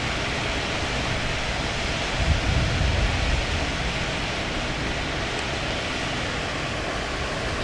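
Strong gusty thunderstorm outflow wind rushing steadily through tree leaves, with a louder low rumble about two to three seconds in.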